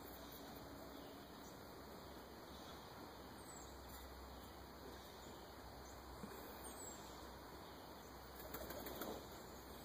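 Faint wing flapping of a flock of domestic pigeons flying overhead, with a short flurry of wingbeats near the end. Two faint, brief high chirps are heard along the way.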